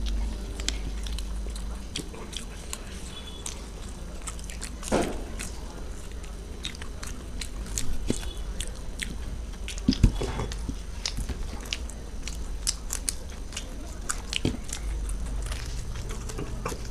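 Two people biting and chewing fried samosas close to a table microphone: many small crisp crunches of the pastry and wet chewing. There is a louder thump about ten seconds in.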